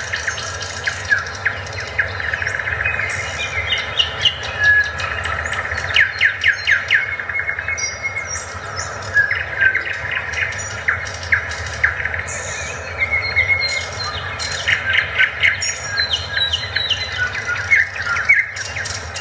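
A dense chorus of small songbirds chirping and calling, full of quick downward-sweeping notes, over a steady low background hiss.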